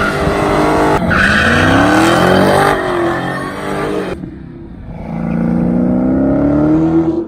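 Supercharged 6.2-litre HEMI V8 of a 2016 Dodge Hellcat revving hard while drifting, its pitch sweeping up and down, with tyres squealing and skidding. After an abrupt cut about four seconds in, the engine revs climb steadily again.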